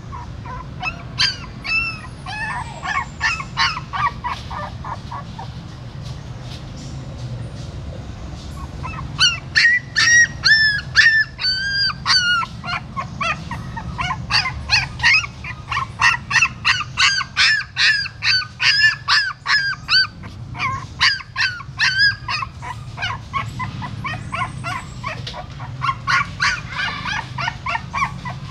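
Newborn puppies whining and squealing in rapid, high-pitched cries. One run starts about a second in, a longer and louder run starts about nine seconds in and lasts over ten seconds, and another comes near the end.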